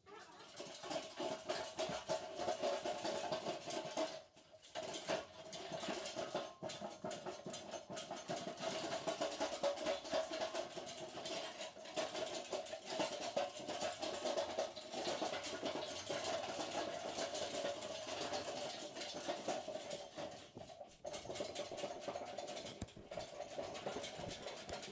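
A power tool running with a rapid rattle in long stretches, stopping briefly about four, twelve and twenty-one seconds in.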